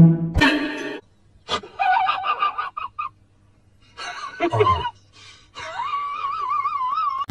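Husky puppy howling: a few short wavering cries, then a longer howl that rises and wavers until the end. Background music plays for the first second and then stops.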